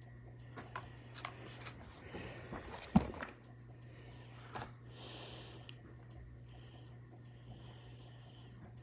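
Handling noises as makeup things are put down and a paper tissue is picked up: light clicks and rustling, with one sharp knock about three seconds in, then a few breaths through the nose. A steady low hum lies underneath.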